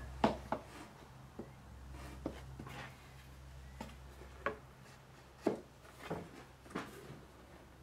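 Light wooden knocks and scrapes as a thin wooden strip is handled and laid along the rim of a wooden beehive box: about ten irregular taps, over a faint low hum.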